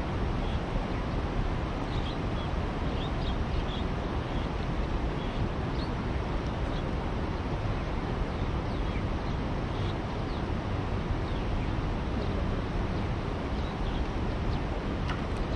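Steady rushing outdoor noise, heaviest at the low end like wind buffeting the microphone, with faint high chirps scattered through it.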